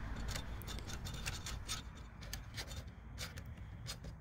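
Faint, irregular small clicks and light rubbing of a thin 22-gauge wire being pushed and worked through a plastic engine-bay fuse box.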